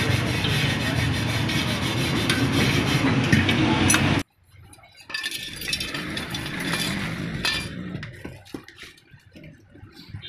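Loud, steady rubbing and scraping as hands work the chrome rim of a spoked motorcycle wheel. It cuts off suddenly about four seconds in. Then come light metallic clinks of loose steel spokes knocking against the hub and rim as they are fitted into the hub.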